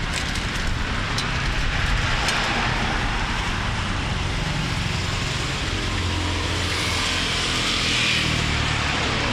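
Steady roadside traffic noise: a low engine rumble under a wash of passing-car hiss, swelling a little about eight seconds in.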